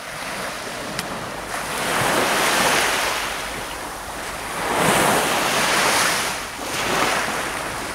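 Baltic Sea surf washing onto a sandy beach, swelling and ebbing as successive waves break, about every three seconds.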